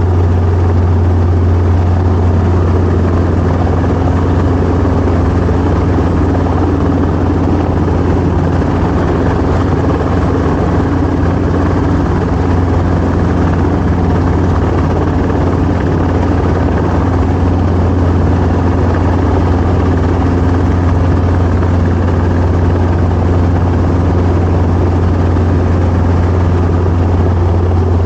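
Helicopter's engine and rotor running steadily, a loud unchanging low hum under a wash of mechanical noise.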